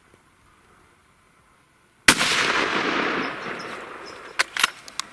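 A single rifle shot about two seconds in, its report echoing and fading away over about two seconds, followed by a few sharp clicks near the end.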